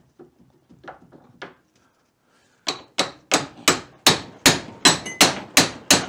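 Hammer blows on a VW Beetle pedal assembly clamped in a vise, driving a rust-seized pedal off its shaft. A few light taps come first, then from about three seconds in a quick, even run of about ten sharp, ringing metal strikes, nearly three a second.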